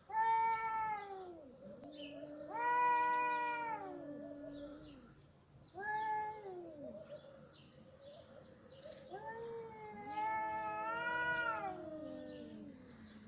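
Two cats yowling back and forth in long, drawn-out calls. One voice is higher and wavering; the other is lower and held longer, and they sometimes overlap.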